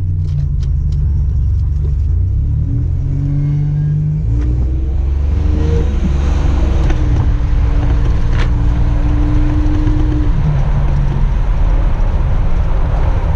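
1987 Buick Grand National's turbocharged 3.8-litre V6 running on the road under acceleration, freshly fitted with a larger turbo. Its pitch climbs, shifts about four seconds in, holds steady, then changes again about ten seconds in.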